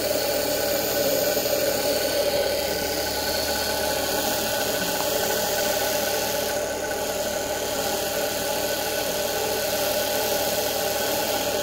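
A 1 HP, 220 V universal washing-machine motor running at high speed on a 12 V DC battery: a steady motor whine of several even tones, holding constant throughout.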